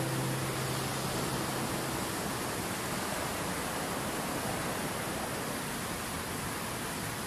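Fast mountain river rushing over rocks: a steady, even sound of whitewater. The last low note of a guitar tune dies away in the first two seconds.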